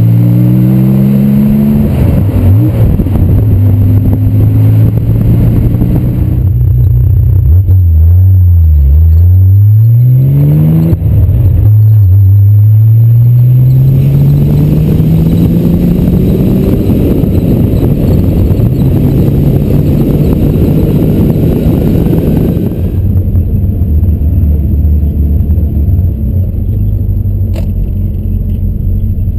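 Air-cooled 3.0-litre flat-six of a 1976 Porsche 911 running a 911 SC engine and SSI exhaust with a Dansk muffler, accelerating hard through the gears: the revs climb, drop at each shift and climb again, with a fall and rise in revs around eight to ten seconds in. Near the end it settles to a steadier cruise, heard from inside the cabin.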